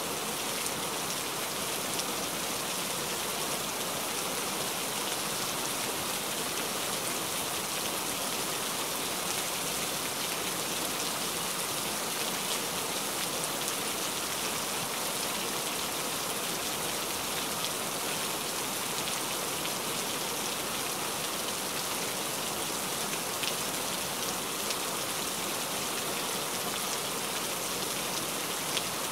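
Steady rain falling, an even hiss with a few sharper drop ticks scattered through it.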